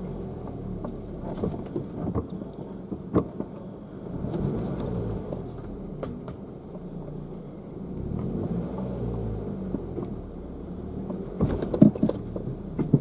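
Car driving on a road: a steady engine and road-noise rumble that swells twice, with scattered knocks and rattles and a cluster of sharper knocks near the end.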